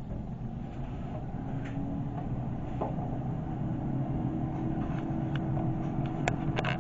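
Air fryer running with a steady fan hum, a faint steady tone joining it about a second and a half in, and a few sharp clicks near the end.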